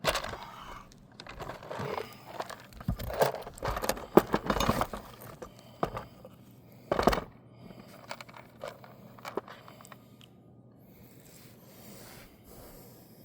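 Asphalt roof shingles scraping and crackling as they are lifted and handled, in uneven bursts, busiest over the first five seconds with one louder scrape about seven seconds in, then quieter.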